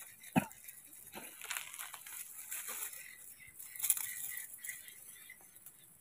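Dry leaf litter and twigs rustling and crackling under baby monkeys scampering and foraging, with a few short snaps and clicks, the sharpest about half a second in.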